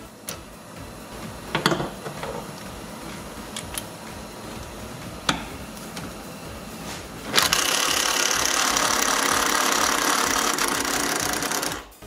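A few clicks and knocks as a socket is fitted onto a seat-mounting fastener. Then, about seven seconds in, a cordless impact wrench hammers for about four seconds, loosening the fastener, and stops abruptly.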